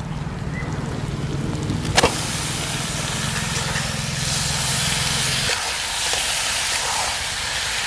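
Raw chicken pieces dropped into hot oil and fried spice paste in a wok, sizzling, with the hiss building up over the next couple of seconds. There is a sharp knock about two seconds in. A low steady hum runs underneath and stops about two-thirds of the way through.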